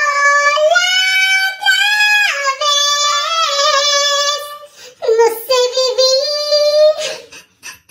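A girl singing alone in a high voice, without accompaniment: long held notes with vibrato in a few drawn-out phrases, with short breaks between them.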